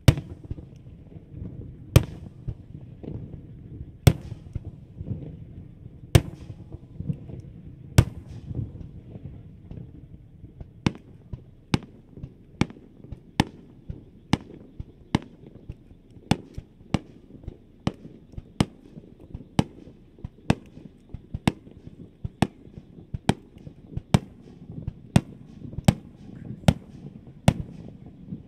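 Aerial firework shells bursting in a fireworks display. Loud sharp bangs come about every two seconds at first, then from about ten seconds in a steady run of roughly one bang a second, with a low rumble between them.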